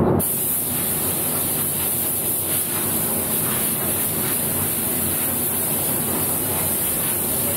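Steady, high hiss of compressed air from an air gun, starting abruptly just after the start. It comes as a primed piece is prepped for its final coat of finish.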